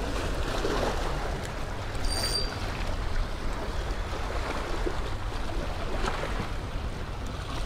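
Small Gulf waves washing and splashing against the rocks of a jetty, a steady churning wash with a low rumble. A short high chirp sounds about two seconds in.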